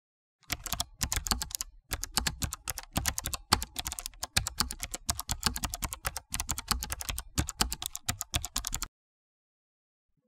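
Fast typing on a computer keyboard: a rapid, uneven run of key clicks that starts about half a second in, pauses briefly twice, and stops about a second before the end.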